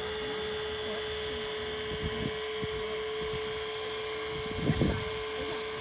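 Hydraulic rescue tool (jaws of life) power unit running with a steady whine, with a short, louder burst of noise about three quarters of the way through as the tool works on the car's door pillar.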